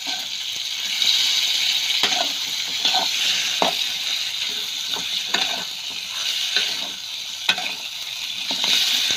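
Chicken curry pieces sizzling in hot oil in a kadai on a low flame, being shallow-fried dry. A spatula scrapes and knocks against the pan about a dozen times as the pieces are stirred and turned.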